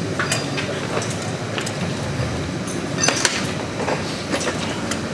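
Metal tire levers clinking and scraping against a dirt-bike wheel rim as the tire is levered over it on a tire-changer stand, with a few sharp clinks, a cluster of them about three seconds in, over a steady background din.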